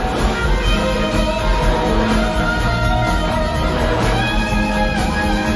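Live blues-rock band playing an instrumental passage without vocals: electric guitars over drums and bass, with trumpet, trombone and saxophone playing.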